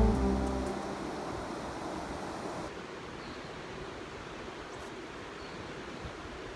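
Background music dies away in the first second, leaving a steady rushing outdoor noise. About three seconds in, the noise turns suddenly duller, losing its hiss.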